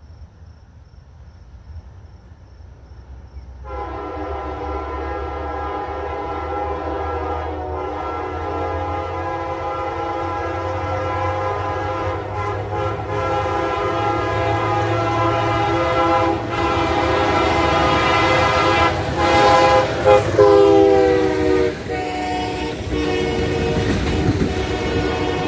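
Approaching diesel passenger train's air horn sounding one long chord of several notes, starting about four seconds in over the low rumble of the train. Near the end the horn's pitch drops as the train passes.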